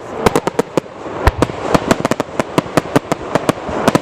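Fireworks going off in a rapid barrage: many sharp bangs close together, several a second, over a continuous noisy background.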